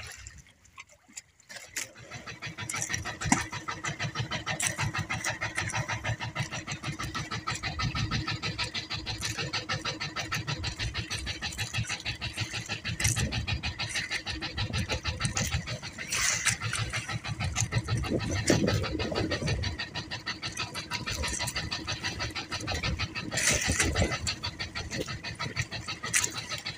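A small outrigger boat's engine running steadily, a fast even chugging that comes in about two seconds in, with slight rises in pitch now and then.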